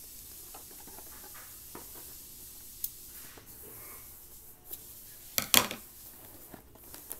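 Scissors cutting packing tape on a cardboard box while the box is handled: soft rubbing and scraping, a small click about three seconds in, and a cluster of sharp clicks a couple of seconds later.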